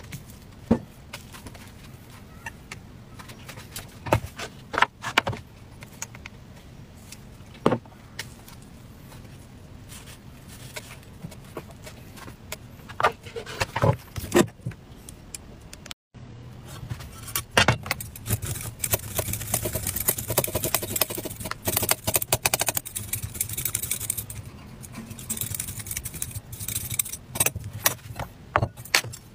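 Scattered light taps and clicks of a silicone pastry brush and batter bowl against an electric crepe pan. After a cut about halfway through, a dense run of rasping scrapes and clicks as the skin is scraped off a root vegetable on a wooden board.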